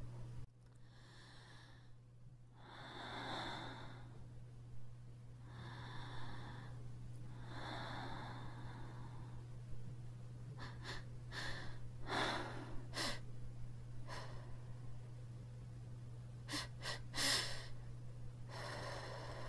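A dancer breathing audibly in several long, drawn breaths, then a run of short sharp sounds in the second half as she moves on the wooden floor, over a steady low electrical hum.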